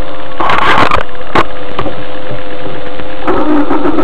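A steady electrical hum is broken about half a second in by a loud, noisy crunch lasting about half a second, with a sharp knock a moment later. A man's voice starts near the end.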